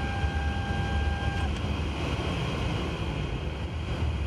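Steady low rumble and hum on the flight deck of a Boeing 777-300ER standing on the ramp with its APU running. A steady two-note tone stops about a third of the way in.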